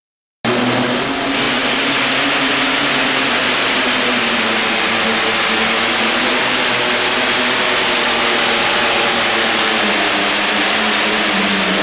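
John Deere alcohol-burning super stock pulling tractor's turbocharged engine running loud at full power under load while it drags the pulling sled. A high whistle rises about a second in and then holds steady over the engine's rumble.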